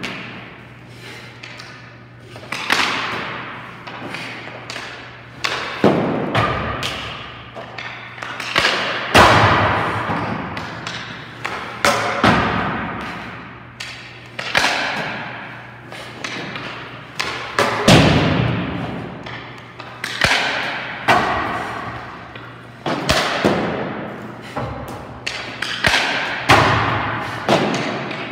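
Hockey pucks shot at a goalie during warm-up: a series of sharp cracks and thuds every second or two, each echoing and dying away in a large rink.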